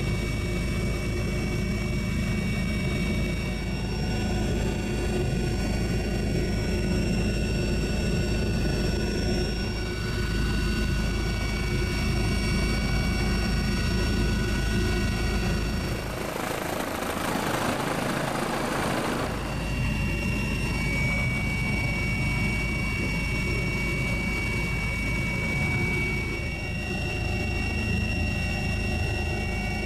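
Helicopter running steadily: a low rumble with a steady high whine over it. About two-thirds through, the rumble drops away for a few seconds and a rushing hiss takes its place before the drone returns.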